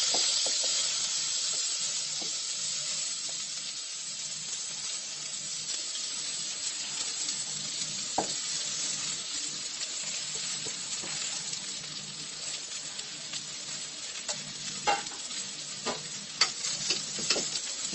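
Washed raw rice and moong dal sizzling as they go into hot ghee in a pressure cooker. The sizzle is loudest as the grains pour in, then settles to a steady sizzle. A few light knocks come in the second half.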